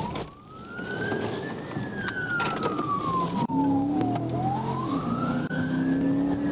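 Police car siren on a slow wail, its pitch rising and falling about once every four to five seconds, over steady vehicle engine and road noise.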